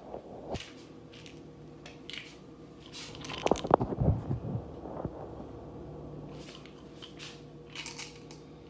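Knocks, clicks and rubbing from a phone being handled and repositioned close to its microphone. The loudest knocks come about three and a half to four and a half seconds in, over a faint steady hum.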